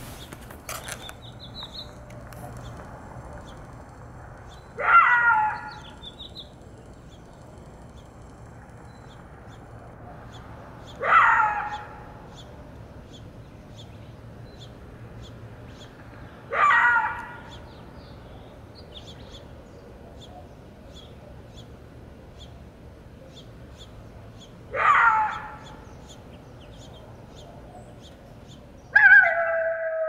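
An animal call, sounded five times about six seconds apart; the last call is longer and falls in pitch. Faint short high bird chirps come in between.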